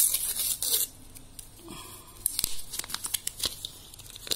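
Foil wrapper of a 120 roll film being torn open: a loud tear in the first second, then crinkling of the foil with a few sharp clicks.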